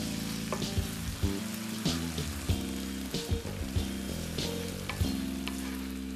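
Ground turkey, chopped tomato and béchamel sauce sizzling in a hot frying pan while being stirred with a wooden spoon. The spoon scrapes and knocks against the pan now and then.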